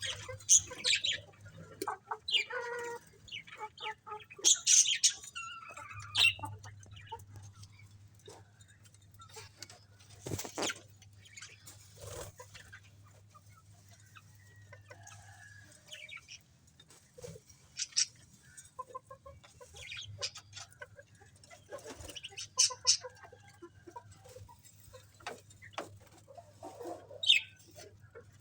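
Budgerigars chirping in short, irregular high-pitched calls scattered throughout, with a few sharp clicks between them.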